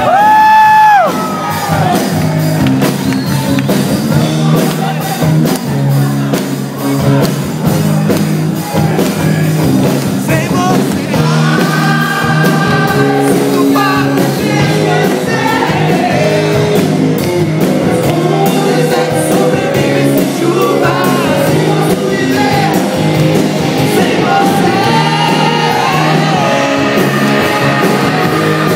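Rock band playing live and loud, with singing. A sung note is held and cut off about a second in, then the band plays on with sung lines returning around the middle and again near the end.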